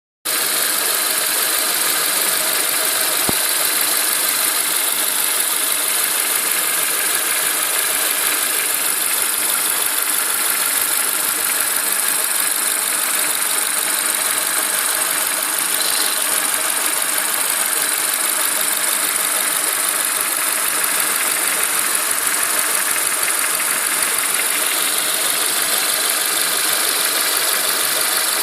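Renault Megane's K4M 1.6-litre 16-valve petrol engine running steadily, with a faint knocking in its sound. The owner finds the knock non-typical and suspects a hydraulic lifter (tappet), the timing belt and dephaser pulley having been replaced.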